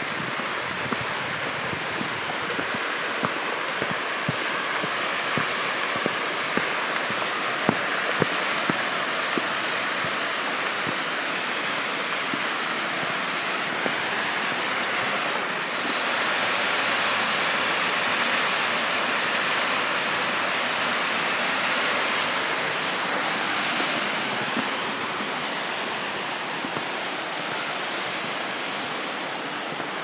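Steady rush of water from a mountain waterfall or stream. It grows louder about halfway through and eases off again a few seconds later, with light footsteps tapping now and then in the first half.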